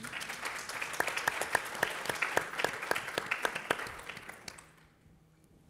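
Audience applauding, with some sharp single claps standing out; the applause dies away after about four and a half seconds.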